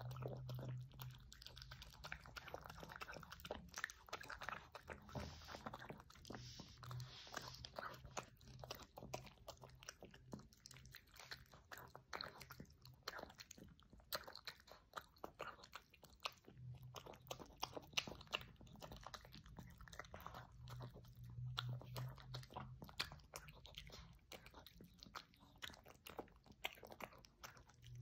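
A small dog eating soft, mushy food from a ceramic bowl: quiet, continuous chewing and smacking with many quick, irregular clicks.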